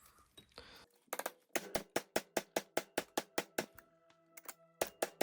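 Rapid hammer blows, about five a second, driving a new bearing race into a Ford Transit rear wheel hub, the metal ringing after each strike. They stop briefly for about a second, then resume near the end.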